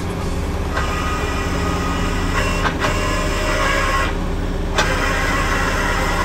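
Engine of heavy machinery running steadily under load, with a rough mechanical noise above it that briefly drops away about four seconds in.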